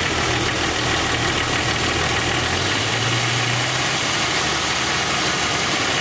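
Jeep Cherokee XJ engine idling before it is fully warm, with a clacking tick from the valve train under the valve cover that the owner takes for a lifter tick on one cylinder. The steady idle note shifts slightly about midway.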